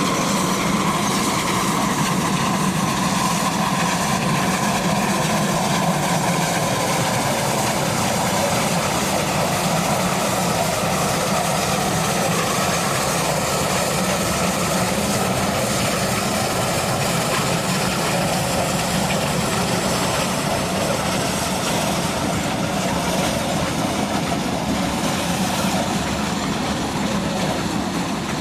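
Lima Shay geared steam locomotive working past with a loaded log train: steady, loud exhaust mixed with the running of the wheels and cars on the rails.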